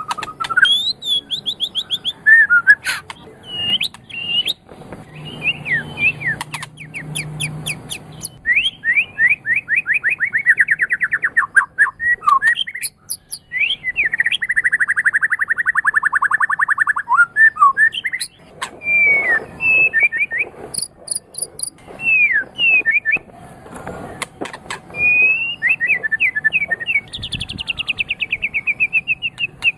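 Murai songbird singing a long, varied song: fast rattling runs of repeated notes, sweeping whistled phrases and thin high chips, one phrase following another with hardly a pause.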